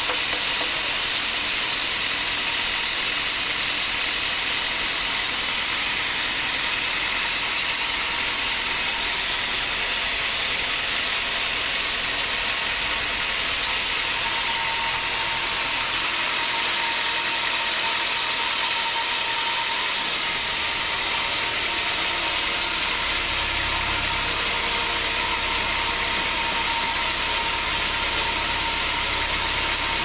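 Band sawmill running steadily: the motor and band blade give a constant hiss with a thin steady whine. A lower hum comes in about two-thirds of the way through.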